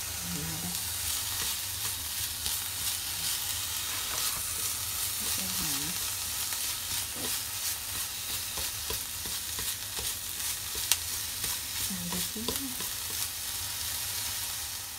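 Minced pork and chopped onion sizzling in a hot frying pan, stirred with wooden chopsticks that tap and click against the pan, with one sharper knock late on.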